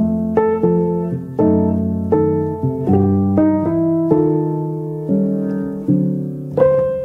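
Background music: slow piano chords, a new chord struck about every second and left to fade.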